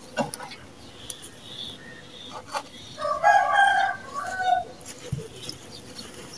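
Dry sand-cement mix crumbling and sifting through bare hands, with soft crunches and a few sharper crackles. A rooster crows about three seconds in, louder than the crumbling, in a long call broken into parts.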